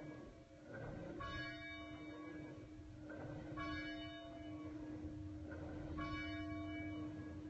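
A church bell tolling slowly, three strokes about two and a half seconds apart, each ring hanging on into the next.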